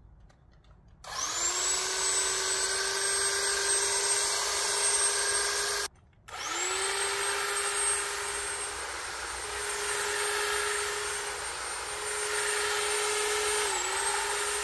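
Electric hedge trimmer's motor starting with a quick rise in pitch and running with a steady whine, stopped for a moment near six seconds in and started again. Its pitch dips briefly near the end.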